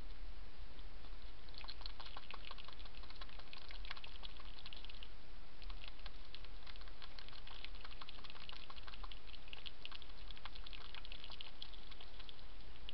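Hedgehog chewing dry food: fast runs of small crunching clicks, with a short pause about five seconds in, over a steady low hum.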